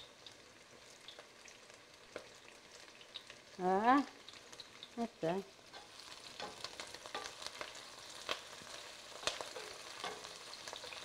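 Chopped onion and garlic frying in olive oil in a skillet: a soft crackling sizzle that gets busier about six seconds in. A brief voice sound comes at about four seconds.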